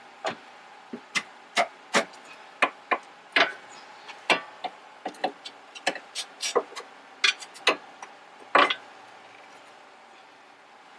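Irregular sharp clicks and knocks of tools and metal parts being handled while a new lower control arm is fitted, stopping about nine seconds in.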